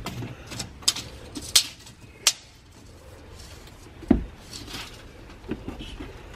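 Sharp clicks and clinks from a tape measure and tool-belt hardware being handled while measuring, with a dull thump about four seconds in and a few small knocks near the end.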